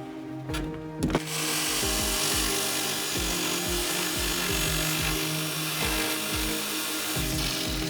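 A power tool runs steadily on wood for about six seconds, starting with a sharp click about a second in and stopping near the end. Background music with a steady beat plays throughout.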